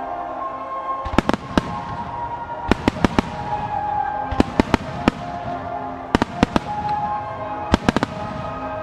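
Starmine fireworks display: aerial shells bursting in quick clusters of three to five sharp bangs, a cluster about every one and a half seconds, over music with long held tones.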